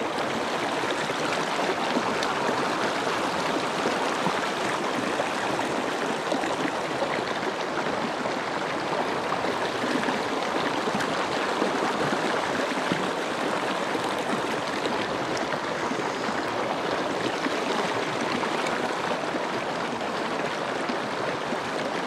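A small rocky mountain stream running over stones: a steady, even rush of water.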